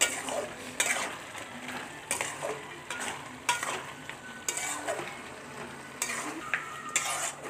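Metal spatula stirring and scraping shredded cabbage around a steel kadai while it sizzles, with a scrape against the pan about once a second.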